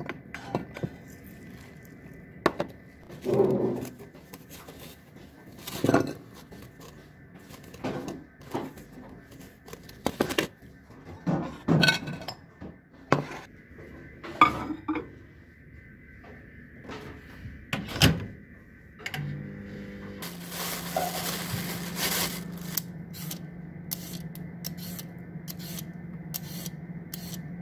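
Kitchen handling: separate knocks and clatter of dishes and packaging being moved and set down. About two-thirds of the way in, a microwave oven starts and runs with a steady low hum, defrosting a frozen mackerel fillet. A short rush of noise and a few light clicks sound over the hum.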